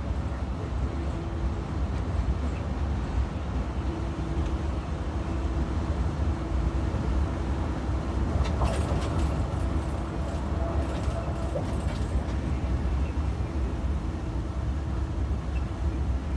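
2022 IC CE gasoline school bus running, a steady low engine and road rumble with a faint steady hum and a few light rattles partway through; the bus has an exhaust leak.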